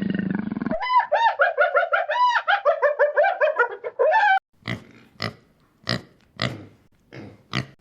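Animal calls: a quick run of high, arched calls, about four a second, for three and a half seconds, then a handful of short, rougher calls spaced out at about one every half second.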